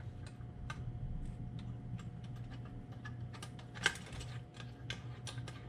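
Light, scattered clicks and taps of small metal parts of a vintage toaster's mechanism being handled, with one sharper click about four seconds in, over a steady low hum.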